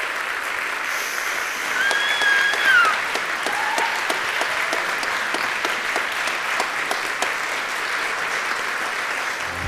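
A large theatre audience applauding steadily, with one high cheer rising over the clapping about two seconds in.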